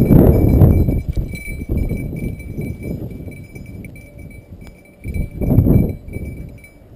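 Wind buffeting the microphone in gusts, loudest in the first second and again about five and a half seconds in, over footsteps and rustling through dry grass and brush.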